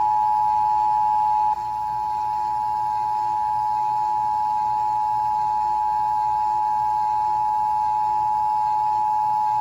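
Emergency Alert System two-tone attention signal received over AM radio: two steady tones sounding together (853 and 960 Hz), held unbroken, with one brief click and dip about a second and a half in. It is the alarm that warns listeners an emergency message, here a child abduction (AMBER) alert, is about to follow.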